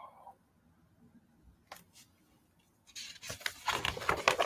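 Paper rustling as a picture book's page is turned, starting about three seconds in, after two faint ticks.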